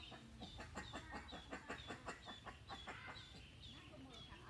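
Baby chick peeping: short high peeps falling in pitch, about two a second, over a rapid scratchy clicking in the first half.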